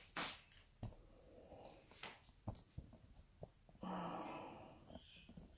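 Faint handling sounds from unloading a bowl of cut leafy vegetable stems onto a kitchen counter: several light taps and knocks, and a short, louder swish about four seconds in.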